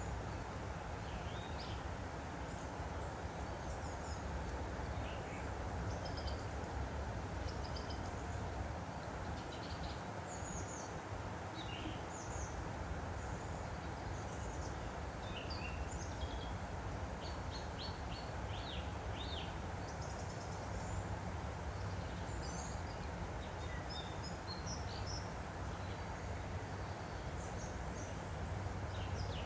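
A woodland stream flowing steadily, with many short, high bird chirps and calls scattered over it.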